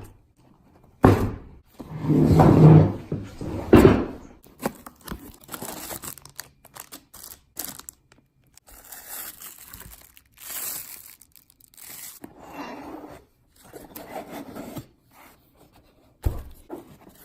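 Irregular knocks and scrapes, loudest and densest about one to four seconds in, then scattered quieter scrapes and a sharp knock near the end.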